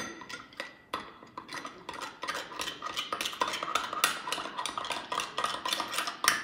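Metal spoon stirring briskly in a small glass jug of jelly powder and hot water, clinking against the glass in a rapid run that grows faster about two seconds in, to dissolve the jelly.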